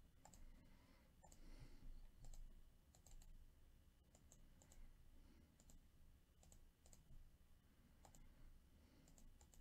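Near silence broken by faint computer mouse clicks, a dozen or so scattered irregularly.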